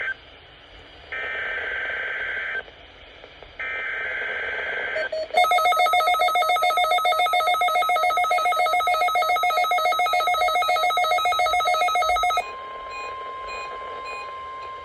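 NOAA Weather Radio Required Weekly Test alert tones: the SAME data-header bursts, each about a second and a half long with short gaps between, then the steady 1050 Hz warning alarm tone. A loud, rapidly pulsing electronic alarm beep sounds over the tone for about seven seconds, after which the tone carries on alone, quieter.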